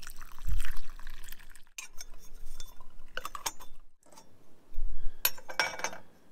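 Kitchen clatter: dishes, glass and utensils clinking in a run of short knocks, with some liquid sounds. The busiest stretch comes about five seconds in.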